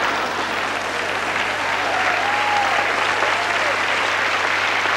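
Audience applauding, a steady clapping that holds at one level throughout.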